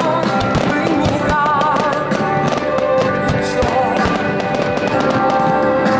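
Fireworks banging and crackling in rapid succession over loud music.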